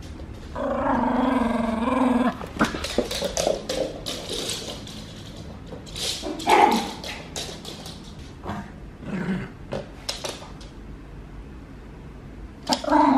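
Small dog growling and yipping in play with a toy: a drawn-out growl near the start, a sharp yip around the middle and another growl near the end, with scattered clicks and taps between.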